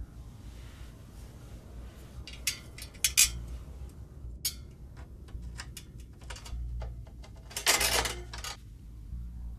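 Metal louvred vent grille being handled and set into a wall opening: a string of sharp metallic clicks and clinks, ending about eight seconds in with a longer, louder rattle as it goes into place.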